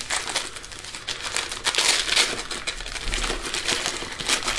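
Gift wrapping paper being pulled off a present and crumpled by hand: a continuous crinkling rustle, loudest about two seconds in.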